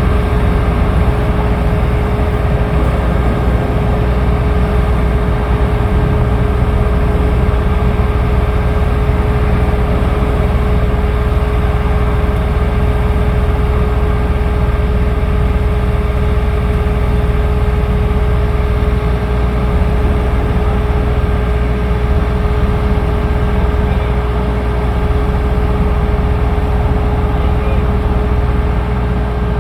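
An engine running steadily: a continuous low rumble with a constant hum over it, unchanging throughout.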